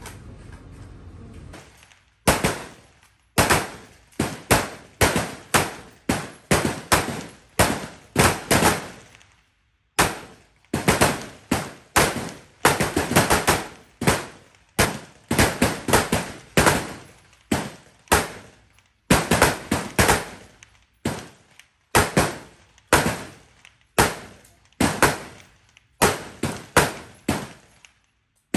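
Several rifles firing single shots on a rifle range firing line, starting about two seconds in: an irregular, overlapping string of sharp cracks, each with a short echo.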